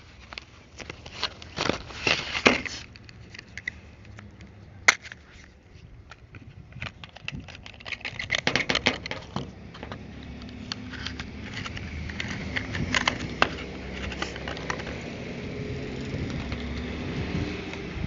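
Handling of new spark plugs, their packaging and a spark plug gap gauge: irregular crinkling and scraping with sharp metal clicks, the loudest about two and five seconds in.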